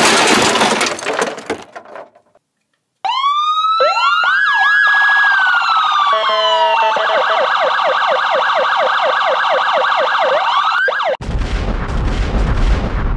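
A dubbed crash sound effect: a loud smash that fades over about two seconds. After a short pause, police sirens wind up and wail, then switch to a fast yelp. About eleven seconds in, the sirens cut off as an explosion booms and rumbles.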